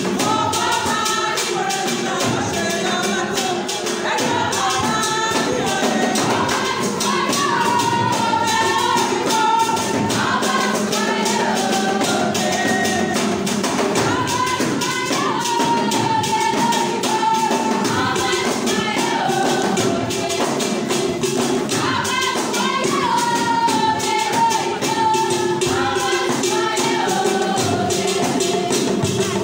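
Music: a sung melody over steady tambourine shaking, with no break.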